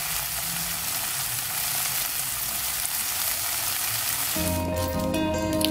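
Prawns, petai beans and sambal sauce sizzling in a pan: an even frying hiss. Background music takes over about four seconds in.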